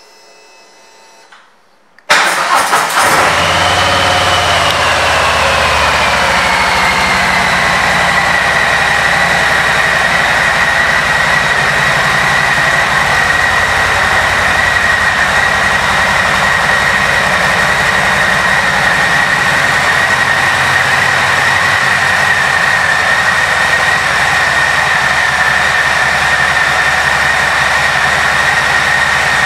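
2020 Harley-Davidson Low Rider S's Milwaukee-Eight 114 V-twin started about two seconds in, then idling steadily. A high whine drops in pitch over the first few seconds after the start and then holds steady.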